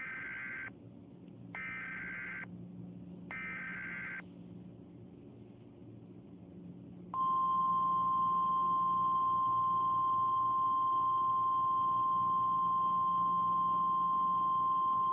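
Emergency Alert System tones: three short bursts of the SAME digital header data, each under a second long with gaps between, then about seven seconds in the long steady single-pitch attention tone begins, louder than the bursts and held unbroken. A faint low hum lies beneath.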